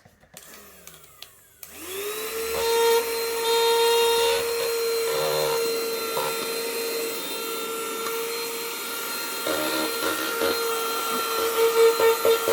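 Cordless handheld 3-in-1 vacuum cleaner switched on: its motor spins up with a quickly rising whine about two seconds in, then runs steadily with a high whine and rushing air. Near the end the sound pulses unevenly in loudness.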